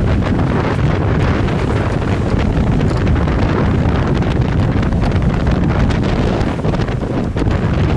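Wind buffeting the microphone in a steady, loud rush aboard a sailboat under way, with water washing past underneath.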